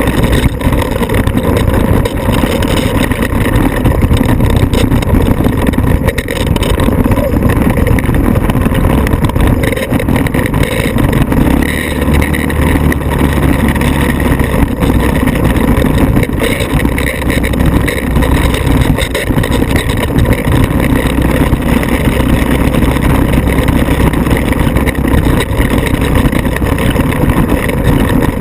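Off-road vehicle engine running loudly and continuously, with small rises and dips in level.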